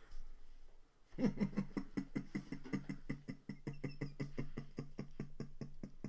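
Suppressed, stifled laughter in a fit of the giggles: rapid rhythmic pulses of the voice, starting about a second in and running on without a break.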